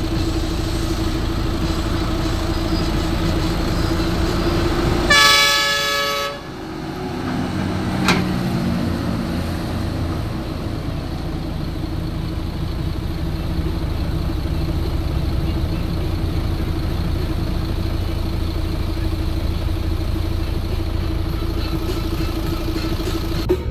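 Heavy diesel logging truck running with a steady engine drone. A loud truck horn blast comes about five seconds in and lasts about a second.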